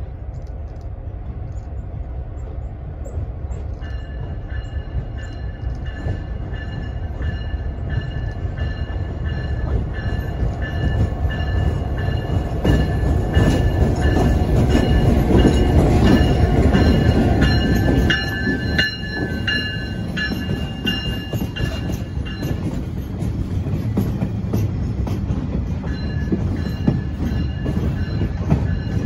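Several Ontario Northland diesel locomotives pass at close range and are loudest about halfway through, followed by their coaches. Wheels click over the rail joints, and high, steady squealing from the wheels comes and goes through much of the passage.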